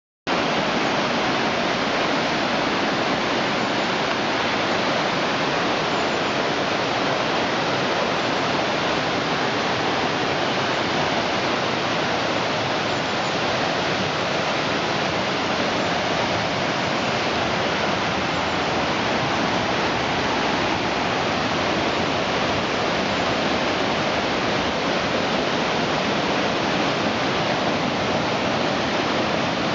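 Steady rushing of a waterfall and river in full flow.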